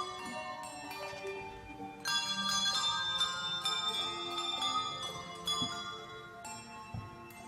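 A handbell team ringing a piece on tuned handbells: many struck bell notes overlap and ring on. The playing gets louder about two seconds in.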